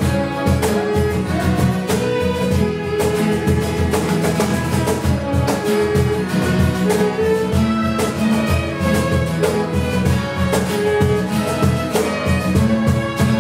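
Three violins playing a melody together over two strummed acoustic guitars keeping a steady rhythm, a small live ensemble rehearsing a pop song arrangement.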